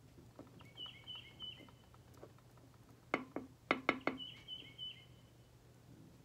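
A songbird singing two short runs of quick, repeated chirps, with a cluster of about five sharp clicks in the middle, the loudest sounds, from needle-nose pliers and a wooden match being handled on a table.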